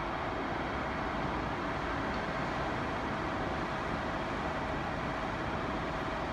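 Steady outdoor background noise: an even hiss and low rumble with a few faint steady tones, and no train passing yet.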